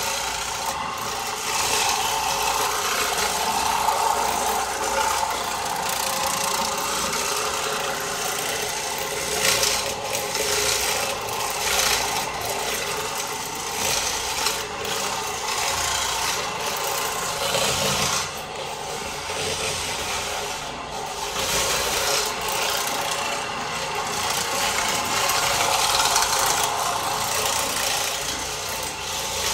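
Oreck orbiter floor machine running with a cotton bonnet pad, scrubbing and buffing a hardwood floor: a steady motor hum under a rubbing swish that swells and eases as the machine is swept back and forth.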